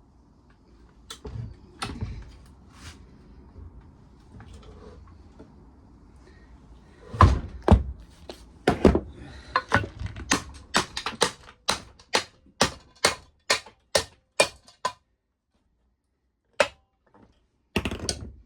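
Hammer blows on a lawnmower engine being broken down: a few knocks, then heavy strikes, then a rapid run of sharp blows about three a second, with a few single blows near the end.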